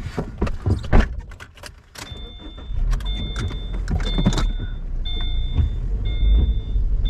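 Knocks and clatter, then a car's electronic warning chime beeping about once a second over the low rumble of the car.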